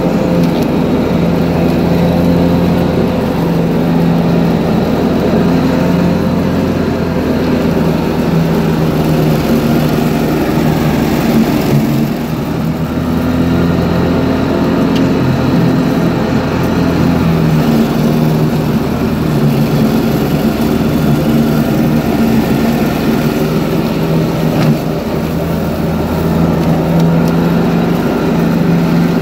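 John Deere 445 garden tractor's engine running steadily with the mower deck engaged, cutting wet, tall grass. Its note wavers a little now and then under the changing load.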